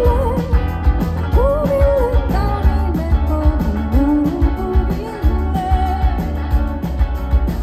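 Rock band playing, with a sung vocal line over electric guitar, bass and drums.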